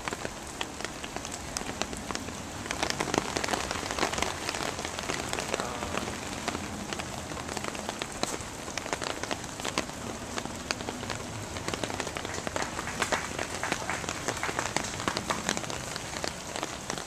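Steady rain falling, with many close drops ticking sharply on nearby surfaces.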